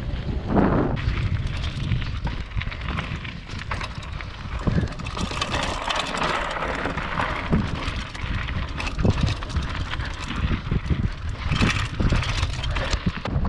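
Downhill mountain bike ridden fast over a rocky gravel trail: tyres crunching on loose stones and the bike rattling and knocking over bumps, with wind rumbling on the microphone.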